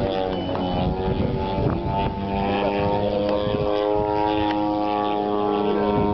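Engine and propeller of a small single-engine aerobatic plane flying overhead, a steady drone whose pitch shifts slightly about half a second in as it manoeuvres.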